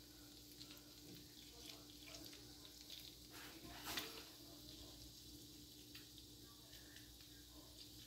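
Faint sizzling and crackling of oil heating on a tawa under skewered boiled quail eggs, with a slightly louder crackle about four seconds in and a steady low hum underneath.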